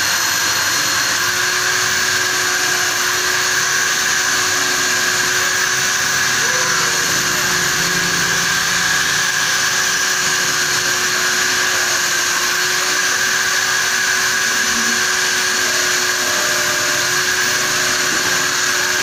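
Electric hand drill clamped in a bench vise running steadily as a makeshift lathe, its motor whining with a steady tone, while a hand-held carbide cutter turns an O-ring groove into the steel nut spinning in its chuck.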